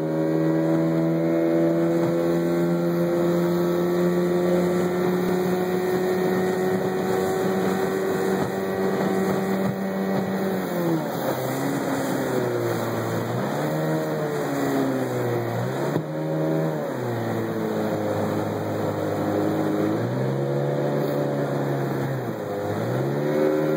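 Outboard motor of a small aluminium boat running at a steady cruising speed, its pitch creeping up, then throttled back and opened up again several times from about halfway through, the engine note dropping and rising with each change.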